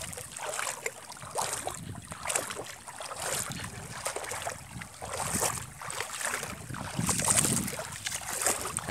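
Shallow river water sloshing and splashing in irregular bursts about once a second, from someone wading through it.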